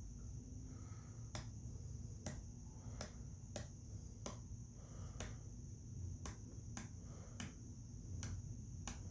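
72-tooth ratchet mechanism (TONE RH3CH, 3/8" drive in a 1/4" body) clicking as its handle is pulled backwards in the freewheel direction: sharp single pawl clicks, a little more than one a second and unevenly spaced, over a faint steady high hiss. This is its backdrag being drawn out by a light pull, 14 g at 5.25".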